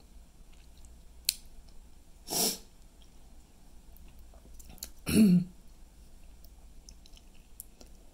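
A man chewing a hot chili pepper, with small wet mouth clicks. A sharp breath comes about two and a half seconds in, then a short, loud cough-like sound from the throat about five seconds in, as the pepper's burn hits his throat.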